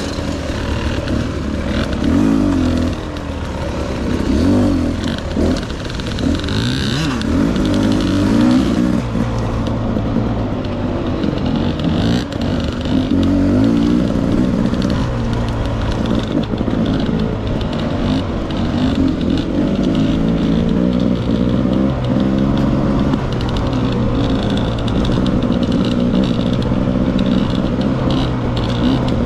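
Dirt bike engine running at low trail speed, the throttle rising and falling for the first several seconds, then holding steadier.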